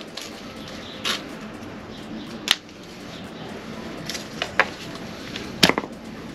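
Scattered clicks, taps and rustles of an orbital sander and its hook-and-loop sanding discs being handled, with a sharper knock near the end as the sander is set down on paving stones.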